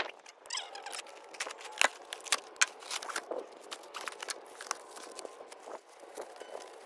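Irregular crackling, crinkling and clicking handling noises, with a few sharper clicks.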